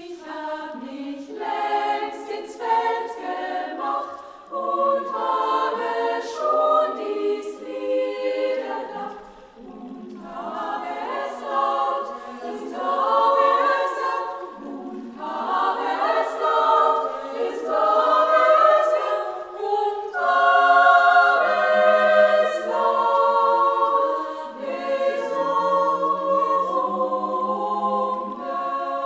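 Women's choir singing a German part-song a cappella in several parts. The phrases break off briefly about nine and fifteen seconds in, and the last third moves into long held chords.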